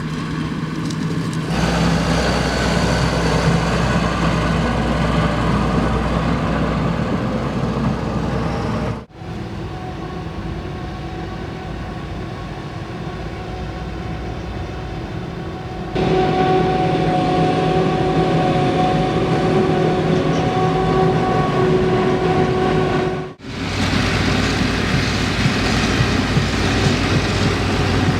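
Heavy farm machinery diesel engines running steadily under load, in three shots cut together. About sixteen seconds in the sound gets louder and a steady whine joins it.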